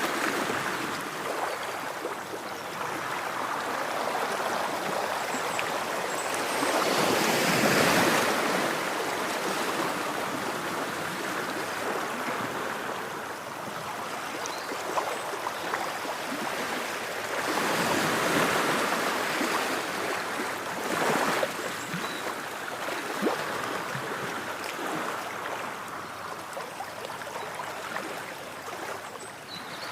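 Ocean waves washing ashore, a continuous rushing that swells and ebbs, with two larger surges, about a quarter and again about two-thirds of the way through.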